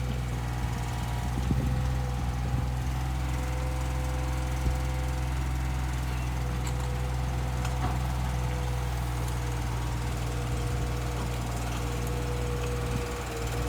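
Komatsu PC15-3 mini excavator's diesel engine running steadily under a digging test, with a steady whine above the engine note and a few short knocks scattered through.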